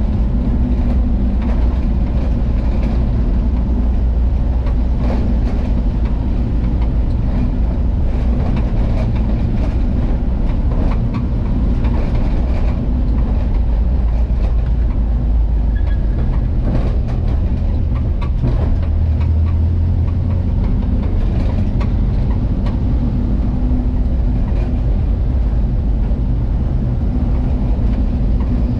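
Volkswagen Kombi van's engine running steadily while the van drives along the road, a loud low drone mixed with road noise.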